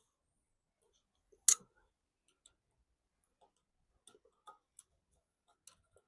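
Small metal clicks as a steel valve collet is worked into place with a screwdriver around a valve stem held down by a spring compressor: one sharp click about one and a half seconds in, then several lighter clicks and taps near the end.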